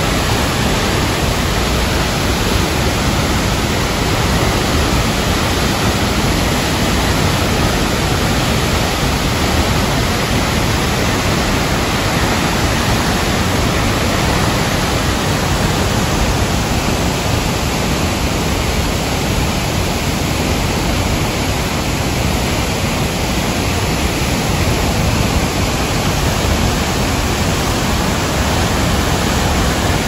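Tall waterfall in full flow: a loud, steady rush of heavily falling water and spray.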